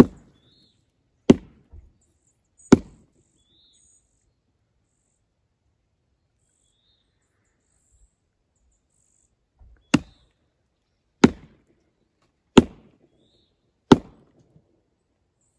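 Bigfoot wood-knock call: a log struck hard against a fallen log. There are three heavy knocks about a second and a half apart, then after a long pause four more at the same pace, each echoing.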